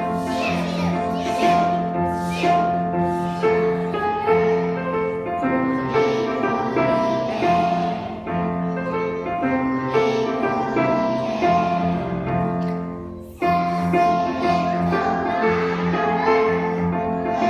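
Music with singing and sustained melody notes. It dips in level and cuts back in abruptly about thirteen seconds in.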